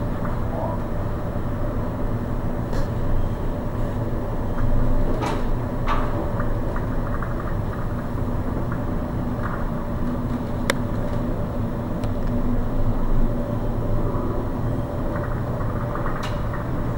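Steady low hum and rumble of a cargo ship's engine and machinery heard from the bridge, with a few brief clicks and knocks, about five seconds in, near eleven seconds and near the end.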